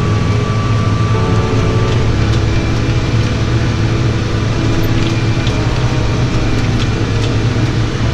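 Tractor engine running steadily, a continuous low drone.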